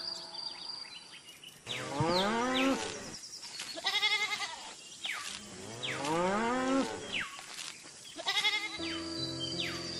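Cows mooing: two long moos that rise and then fall, about two and six seconds in, with shorter, higher animal calls between and after them.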